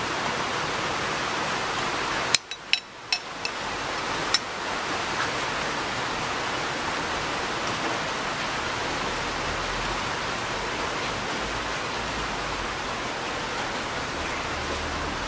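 Steady hiss from a gas stove burner. About two seconds in, it drops away while a run of five or six sharp clicks sounds, an igniter being worked after the flame went out, and then the hiss builds back as the burner runs again.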